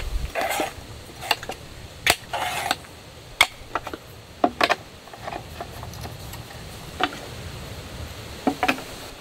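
Aluminium legs and metal brackets of a wooden-topped folding camp table being handled and fitted: scattered sharp clicks and knocks with a few short rattles, over a low rumble of wind.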